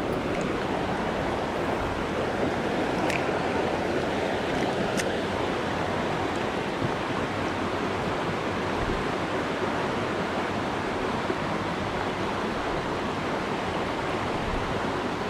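Rocky mountain trout stream rushing steadily over riffles and stones close by.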